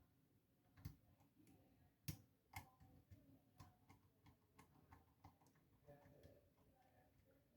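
Faint, irregular clicking and light scraping of a lock pick working the pins inside a pin-tumbler lock under light tension, with a few sharper clicks about one, two and two and a half seconds in.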